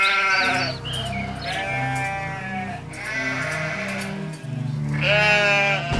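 A sheep bleating in about four long calls over background music with a stepping bass line.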